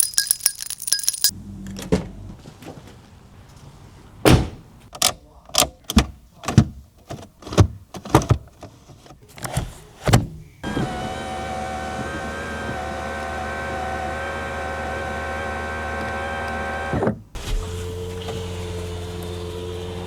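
Clicks and knocks from a 1997 Toyota 4Runner SR5's controls and fittings. Then a small electric motor runs with a steady whine for about six seconds and stops, and a second, lower-pitched motor hum starts and keeps going.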